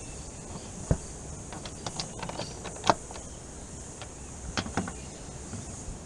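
Handling noises from a power tool being set up: several scattered light knocks and clicks. The sharpest come about a second in and about three seconds in, over a steady faint hiss. No motor is running.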